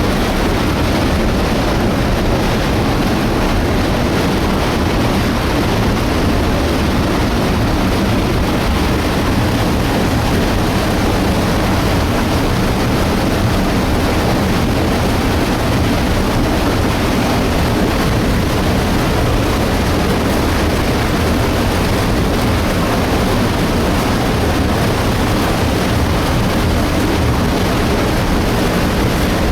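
Illgraben debris flow rushing down its torrent channel: a loud, steady, deep rush of muddy water and debris that does not let up.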